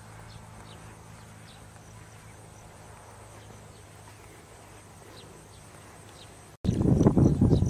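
Quiet outdoor ambience: a steady low hum, a faint high insect trill and a few faint chirps. About a second before the end it cuts abruptly to a much louder rough, rustling noise.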